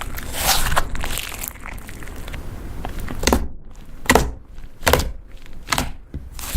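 Butter slime being pressed and squished by hand: soft rustling at first, then a run of sharp, wet squelches about every second.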